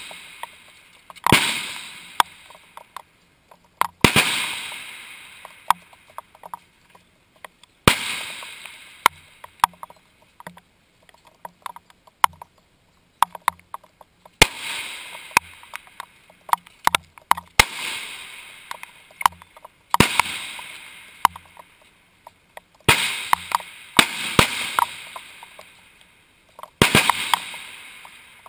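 Rifle shots on a long-range firing line: about eight loud, sharp reports at uneven intervals, each trailing off over a second or two. Fainter sharp clicks and knocks fall between them.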